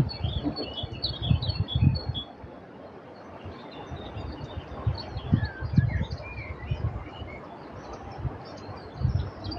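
Many small songbirds chirping and twittering in quick, overlapping calls, with wind buffeting the microphone in low gusts near the start, in the middle and near the end.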